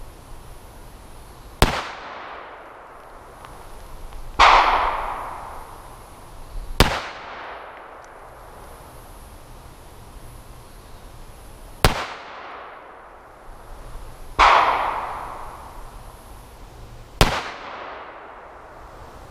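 Six revolver shots from a .357 Magnum revolver and a Taurus Judge loaded with triple-aught buckshot, heard from beside the targets 25 yards downrange. Each report is sharp and dies away in an echo, and the second and fifth have a fuller, longer tail than the other four.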